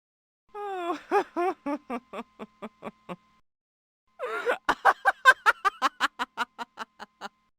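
Two separate laughs, each a string of short "ha" pulses. The first falls in pitch and trails off; the second, about four seconds in, is quicker, around five pulses a second.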